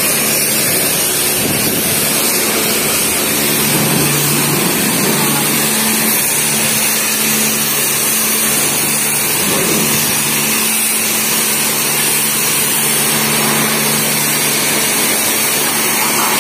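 High-pressure washer wand blasting a water jet onto a car's body, a loud, steady hiss with a low hum underneath.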